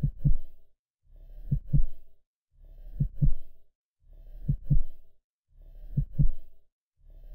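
Slow heartbeat sound effect: a low double thump, lub-dub, repeating evenly about every one and a half seconds.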